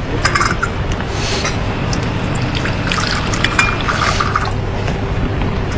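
Hot coffee poured from a glass carafe into a cup, a steady trickle of liquid.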